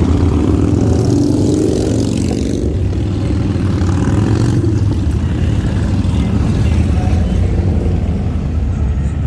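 Several cruiser motorcycles riding past at low speed, a loud, steady engine rumble, with one engine's note rising over the first couple of seconds.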